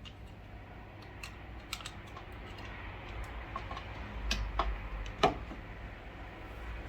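Scattered light clicks and taps of small plastic parts being handled, with a sharper knock about five seconds in.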